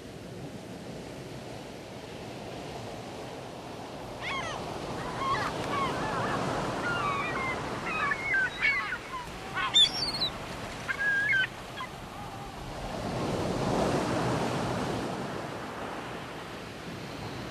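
A steady rushing noise like surf, swelling about thirteen seconds in, with a run of short bird calls that rise and fall in pitch between about four and twelve seconds in.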